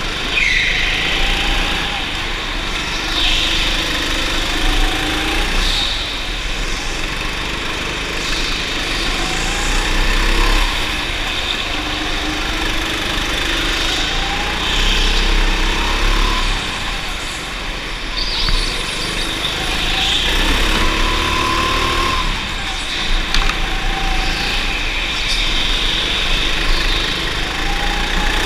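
Go-kart engine heard from on board the kart, its pitch rising and falling over and over as the driver accelerates out of corners and lifts into them, over a steady rush of noise.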